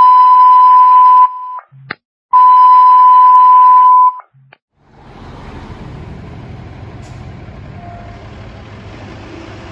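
Two long, loud steady alert beeps, each about two seconds with a short gap between them. From about five seconds in comes the low rumble of a fire engine idling in its station bay, lights on and ready to respond.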